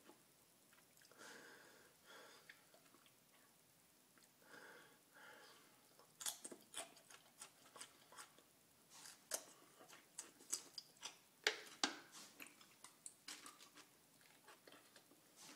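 Raw garlic cloves being bitten and chewed: soft at first, then a run of sharp crunching clicks from about six seconds in.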